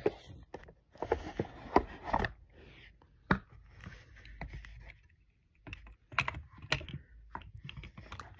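Irregular taps and clicks from a hand handling the recording phone close to its microphone.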